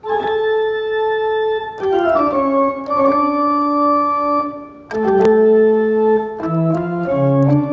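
An 1879 pipe organ playing slow, sustained chords, the harmony moving every second or two with a few notes stepping down about two seconds in. A fresh chord enters after a short dip about five seconds in, and deeper bass notes come in near the end.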